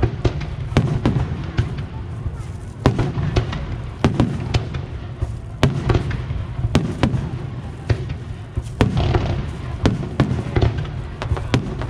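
Fireworks going off in quick, irregular succession: sharp bangs and cracks, two or three a second, over a steady low rumble.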